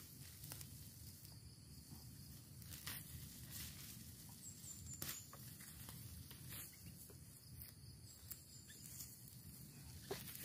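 Near silence: a faint low background rumble with a few scattered faint clicks.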